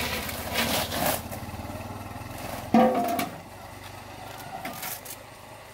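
A small engine running steadily, fading away over the first couple of seconds, with a brief loud pitched sound about three seconds in.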